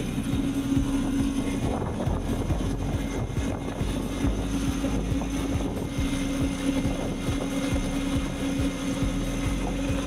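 Roadtec RP-190 asphalt paver running while it lays asphalt, a steady engine drone with one constant tone over an uneven low rumble.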